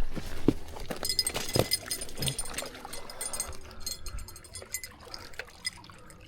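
Water sloshing and trickling in irregular small splashes and gurgles, louder in the first couple of seconds and then fading.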